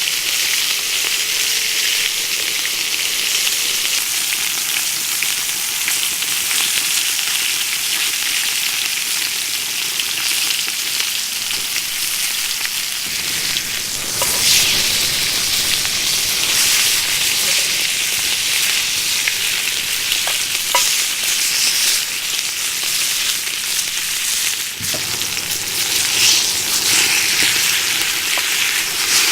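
Food frying over a campfire with a loud, steady sizzle that swells louder and fuller about halfway through and again near the end.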